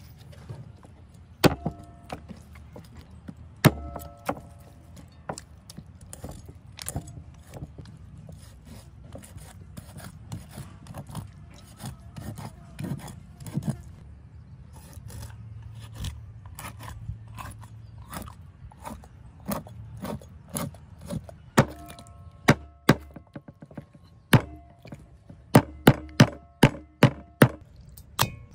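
Large knife chopping a water snake on a wooden chopping board: sharp knocks, several with a brief metallic ring from the blade, spaced out at first and then in a quick run of strikes near the end, with rubbing of the snake's skin on the wood in between.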